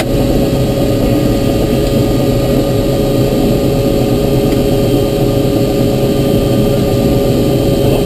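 Helicopter engine and rotor running steadily on the ground, heard close up: a constant whine over a dense low rumble.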